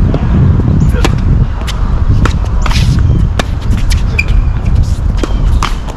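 Tennis rally: a racket serve struck about a second in, then a run of sharp pops from racket strikes and ball bounces roughly every half second to second, over a steady low rumble.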